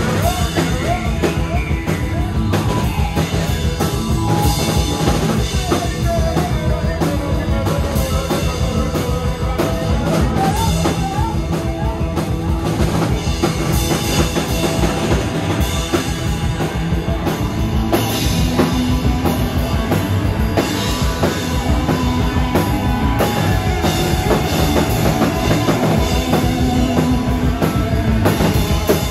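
Psychedelic rock band playing live: a drum kit driving a steady beat under electric bass, electric guitar and keyboards in an instrumental stretch.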